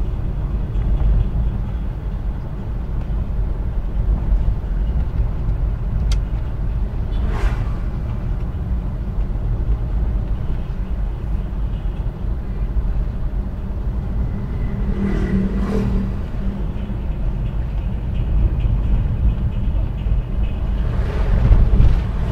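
Suzuki Carry Futura on the move, its engine and tyres making a steady low rumble. A few brief sounds stand out over it, one about fifteen seconds in.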